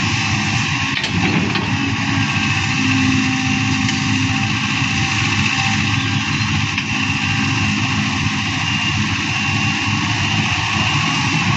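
A vehicle or machine engine running steadily, loud and unchanging.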